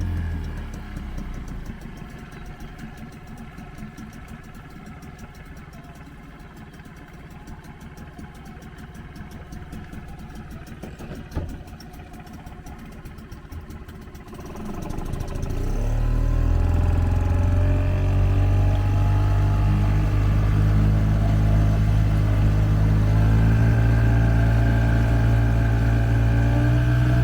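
Small outboard motor on an inflatable dinghy ticking over quietly. About halfway through it is throttled up and runs loudly and steadily at higher revs, with a slight further rise in pitch later on.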